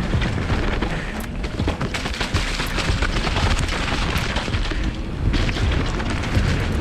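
Mountain bike riding fast down a forest trail: tyres rolling through dry fallen leaves and dirt, with scattered knocks and rattles from the bike. Steady wind rumble buffets the camera microphone throughout.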